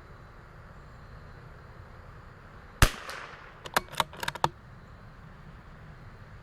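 A single shot from a CZ 457 .22LR bolt-action rifle, a sharp crack about three seconds in with a short trailing echo. About a second later comes a quick run of about six metallic clicks as the bolt is worked to eject the case and chamber the next round.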